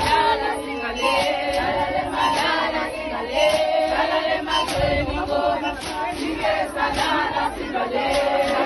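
A large crowd of women singing together in unison, a chanted traditional song, with crowd noise around them.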